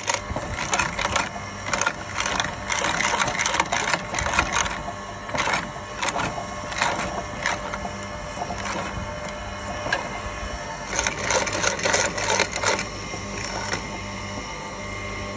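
Meat grinder running with a steady hum while its auger forces soap through the cutting plate. Irregular crunching and cracking come in clusters as the soap is cut, with a lull past the middle, and thin out near the end.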